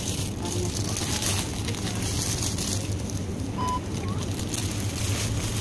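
Supermarket ambience: a steady low hum under light background noise, with the crinkling of a thin plastic produce bag being handled and a short electronic beep about halfway through.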